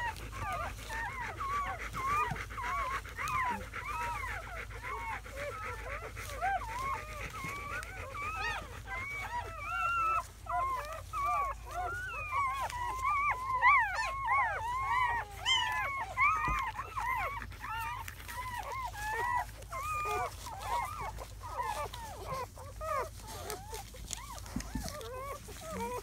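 A litter of newborn German Shepherd puppies, only hours old, squeaking and whimpering together: a constant chorus of short, high, rising-and-falling squeals that overlap, busiest about halfway through.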